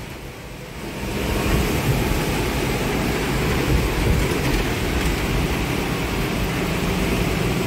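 Bus engine running and heavy rain, heard from inside the bus: a steady rushing noise with a low rumble that swells up about a second in.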